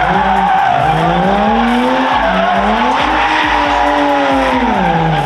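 Race car drifting, its engine revving up and down with the throttle while the rear tyres squeal and smoke. Near the end the revs fall away.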